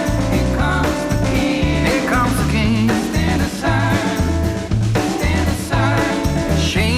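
Rock-and-roll background music with a steady drum beat, a pulsing bass line and guitar.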